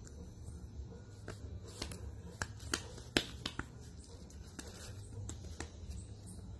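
A golden retriever puppy's claws and paws tapping and clicking on a tile floor as it paws at a hand: about ten light, scattered clicks, the sharpest a little past the middle, over a low room hum.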